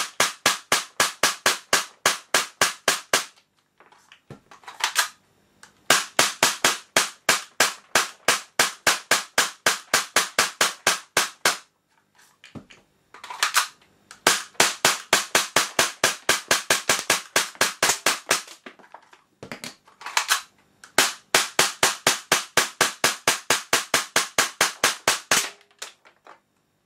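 Tokyo Marui Sentinel Nine gas blowback airsoft pistol firing rapid semi-automatic shots, about five a second. Each shot is a sharp pop with the slide cycling, in long strings broken by pauses of a second or two. The firing stops near the end with the slide locked back on an empty magazine.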